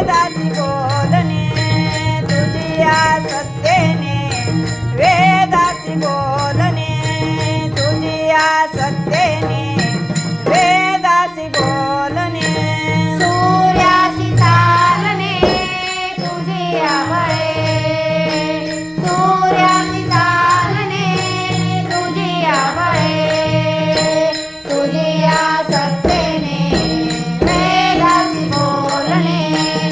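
Marathi abhang devotional music: a woman's voice sings a gliding, ornamented melody over a steady drone, with small cymbals ticking a regular beat.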